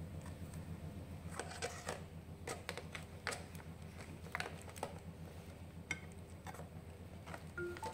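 Light, scattered clicks and scrapes of a metal spoon against a plastic takeaway tray and serving bowl as stuffed eggplant pieces are spooned out. A low steady hum lies underneath.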